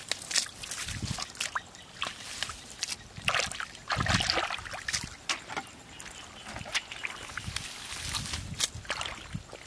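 Clumps of weeds and dry grass being torn out of shallow muddy water by hand: irregular rustling and crackling with small splashes and squelches of wet mud, busiest about four seconds in.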